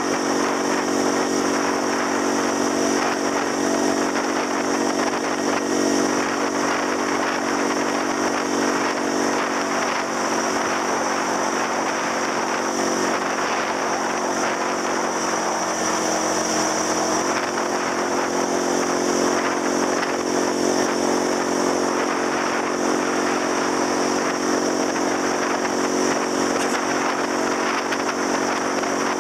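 Motor scooter's engine running steadily at cruising speed, heard from on board, with an even rush of wind and road noise.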